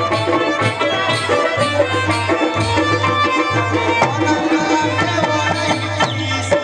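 Live Afghan traditional music: a hand drum keeps a steady beat under a harmonium and plucked-string melody.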